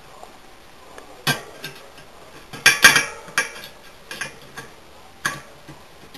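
Bicycle wheel being trued: a spoke key working a spoke nipple gives a handful of irregular metallic clicks, the loudest pair about three seconds in, as a spoke is tightened.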